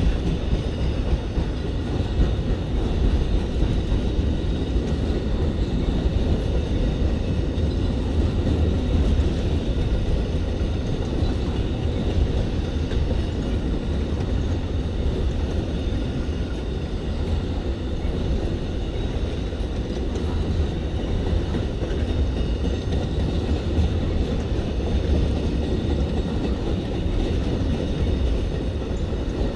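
Amtrak Auto Train rolling past slowly under a slow order: a steady, low rumble of wheels on rail that carries on without a break.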